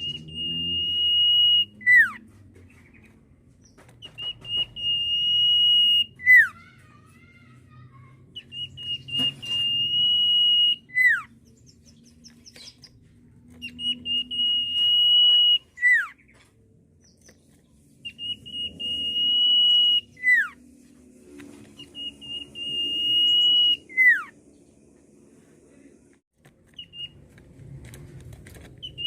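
Common iora (sirtu/cipoh) whistling its typical song: a long, steady, high whistle ending in a quick falling note, repeated about every four seconds, six times.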